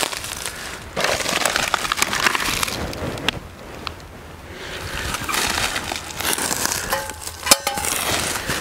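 Footsteps crunching through dry grass and leaf litter in irregular bursts, then the rustle of gear being handled, with a sharp click about seven and a half seconds in.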